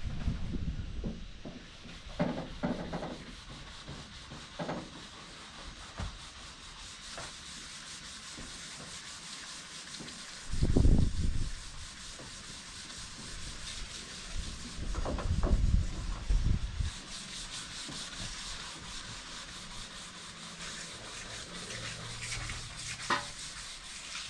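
Sanding with sandpaper: steady scratchy rubbing strokes, broken by a few dull thumps, the loudest about halfway through.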